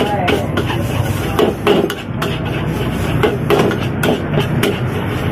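Repeated irregular metal clanks and scrapes of a spatula stir-frying fried rice in a wok.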